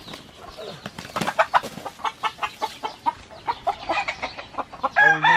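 Chickens clucking in a quick run of short calls. Near the end a gamecock starts a loud crow.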